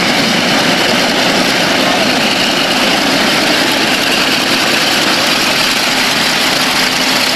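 Vought F4U Corsair's Pratt & Whitney R-2800 radial engine running steadily at taxi power, loud, as the fighter taxis past close by.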